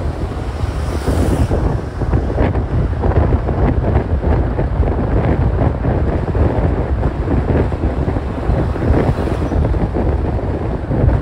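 Wind buffeting the microphone of a moving car, a steady loud rumble over road and tyre noise.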